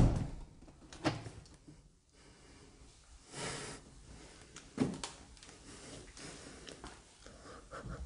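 Scattered thuds and knocks of a person stepping through a doorway. The loudest comes right at the start, a lighter one about a second in, and another about five seconds in.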